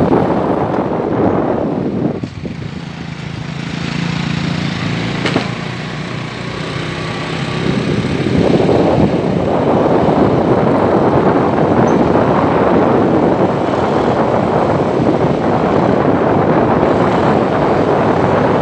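Road vehicle noise: a loud, steady rushing sound that eases from about two to eight seconds in, where a low engine hum shows through, and then comes back as loud as before.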